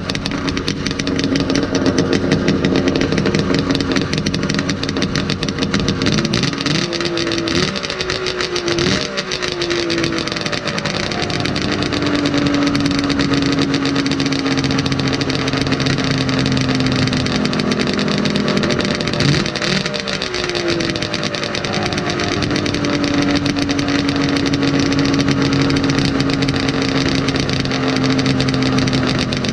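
Two-stroke engine of a 1972 Ski-Doo Blizzard 797 barn-find snowmobile running under its own power. Its pitch shifts up and down twice, about seven seconds in and again near twenty seconds, and in between holds a steady note as the engine is revved.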